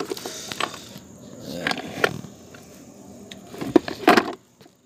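Hands handling tools in a plastic toolbox: irregular clicks and knocks of tools and the lid compartment, the loudest pair of knocks near the end.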